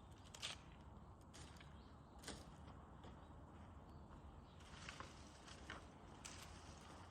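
Wood bonfire crackling faintly, with a handful of sharp pops scattered over a low steady hiss.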